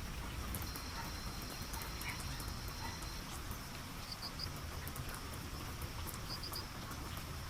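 Rainforest ambience: a steady high-pitched insect drone, with a thinner whine for the first three seconds and quick triple chirps twice in the second half, over scattered fine ticks and a low rumble.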